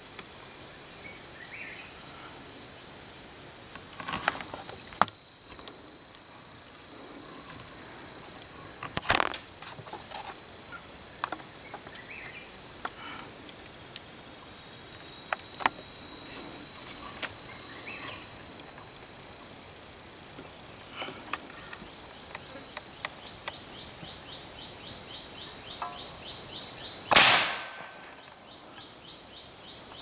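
Insects buzzing steadily in a high drone, with scattered small clicks. About three seconds before the end comes one sharp shot from a scoped gun fired at a perched bird, with a short ringing tail.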